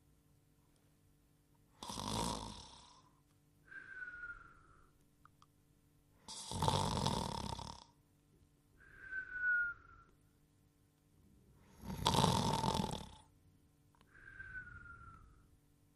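Cartoon sleeper's snore-and-whistle: three loud snores about five seconds apart, each followed by a short whistle on the out-breath that falls slightly in pitch.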